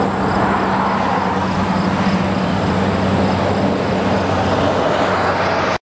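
Steady, loud highway traffic noise with a low engine hum that holds one pitch, cutting off suddenly at the end.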